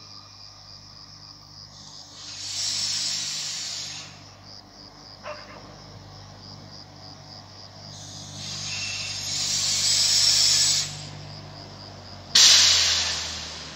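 Crickets chirping in a steady fast pulse while a Minuetto regional railcar approaches, with a low steady hum underneath. Three loud bursts of hissing noise rise over it, the last starting suddenly about twelve seconds in.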